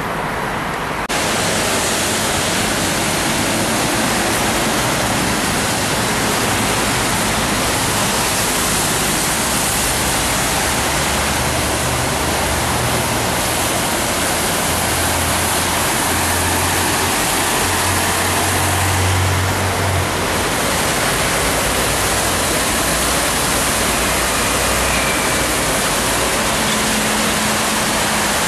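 Steady loud hiss of traffic on a rain-wet road, starting about a second in. Passing trucks add a low engine rumble through the middle stretch.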